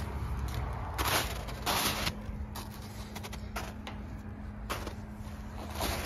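Footsteps crunching in packed snow, a handful of uneven steps, over a steady low hum.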